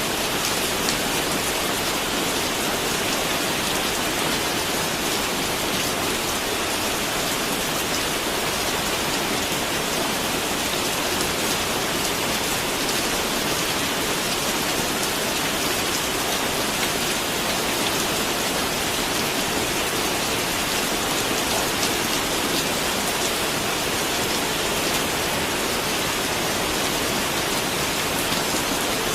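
Steady rain falling, an even hiss with fine patter of drops, without a break or change.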